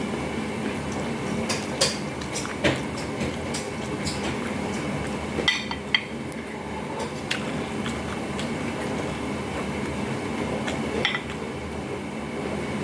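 A spoon and cutlery clinking against dishes a handful of times, over a steady background rumble.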